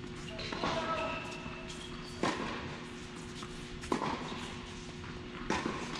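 Tennis ball being hit back and forth in a rally: sharp racquet strikes come about every second and a half, with lighter ball bounces and knocks between them.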